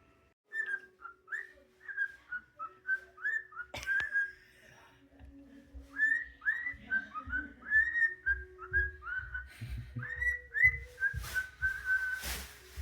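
A pet bird whistling runs of short, quick chirpy notes, a few a second, with a pause around the middle. Some low bumps and a short rustle come near the end.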